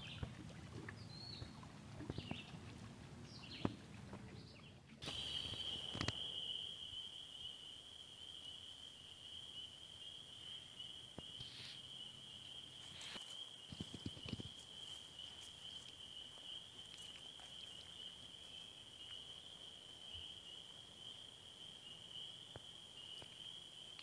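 Steady, high-pitched insect trill, one unbroken tone that starts abruptly about five seconds in and holds to the end. Before it, a low rumble with a few short, faint chirps.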